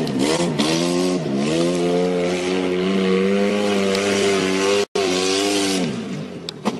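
Off-road buggy engine revving hard. Its pitch dips briefly about a second in, then holds high and steady. Near the end the note falls away as the buggy tips up onto two wheels.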